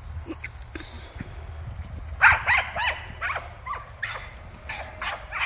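Cattle dog yipping and barking in excited spurts. A quick run of short, high yips starts about two seconds in, a few each second.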